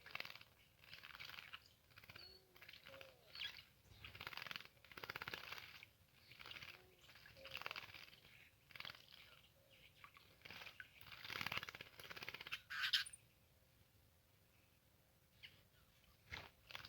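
Small birds bathing, splashing and fluttering their wings in shallow water in a run of short, faint splashy bursts, with a few brief chirps between them. A sharper splash about 13 s in is followed by a pause of about two seconds before the splashing picks up again.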